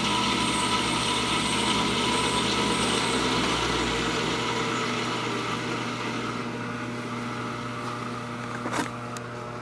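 Clausing 15-inch drill press head running at 1200 RPM on its highest belt speed: a steady whir of the three-phase motor, belt and spindle with an even hum. The sound grows gradually quieter through the second half, and a single click comes near the end.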